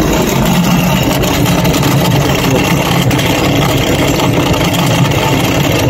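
Samsung washing machine drain pump running loudly with a steady, noisy hum: the pump is worn out and due for replacement.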